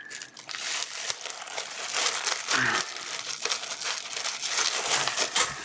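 Plastic mailing bag crinkling and rustling continuously as it is handled and opened.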